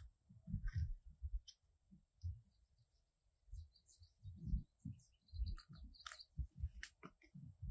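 Bermuda grass runners being pulled up by hand from the soil: irregular crackling and rustling of grass stems and roots tearing loose, with soft low thuds, the loudest crackle a little over a second before the end.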